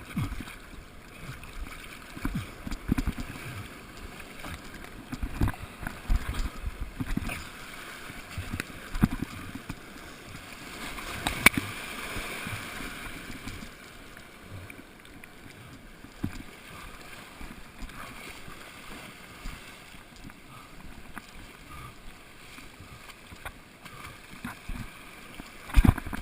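Steady wash of water, with irregular low buffeting of wind against the microphone.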